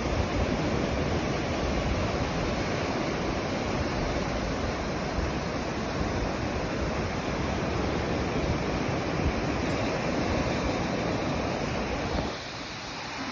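Ocean surf breaking and washing on the beach, a steady rush, with wind buffeting the microphone; the low rumble dips briefly near the end.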